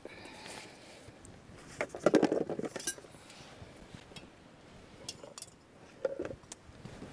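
Camp cooking gear clinking and clattering as it is handled while coffee is being put on: a quick run of clinks about two seconds in, the loudest part, and a few lighter knocks near the end.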